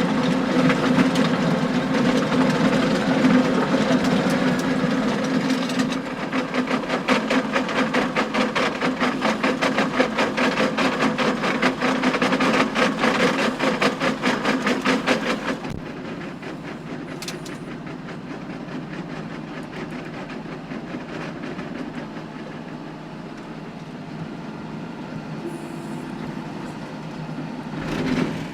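Tractor-driven power harrow working wet, stony ground: the John Deere tractor's engine drones steadily under a fast, rattling clatter of stones clacking against the rotating tines. The clatter is loud for the first half, then drops to a quieter level about halfway through.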